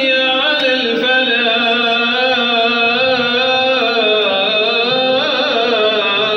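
Middle Eastern-style chanted vocal music: one voice holding long notes that waver and glide in pitch.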